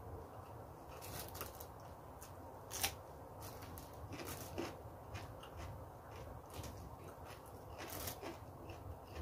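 Close-miked eating sounds: chewing of fried corn rice with small wet mouth clicks, and a metal spoon scraping and tapping food on a paper-lined tray. A sharp click about three seconds in is the loudest.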